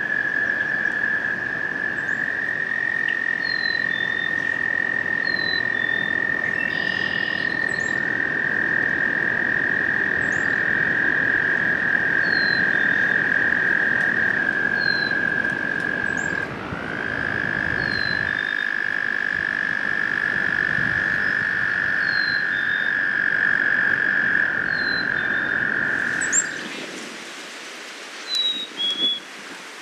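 American toads trilling: long, steady, high-pitched trills, two overlapping at slightly different pitches and taking over from one another, all stopping near the end. Short, high chirps repeat faintly over them.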